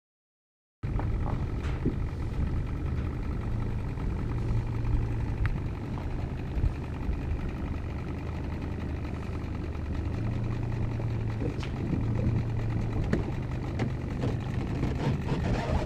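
Boat's outboard motor running steadily at low revs, starting abruptly about a second in.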